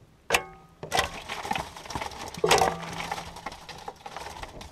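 Several sharp knocks and clatter as a fish and fly rod are handled aboard a small boat, the first knock with a brief metallic ring and the loudest about two and a half seconds in.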